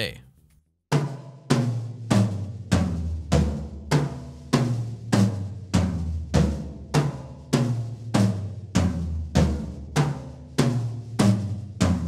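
Toms of a five-tom drum kit struck one at a time in a steady pattern, about one hit every 0.6 s, starting about a second in. Each hit rings with a low drum tone, and the pitch steps up and down as the hits move around the toms.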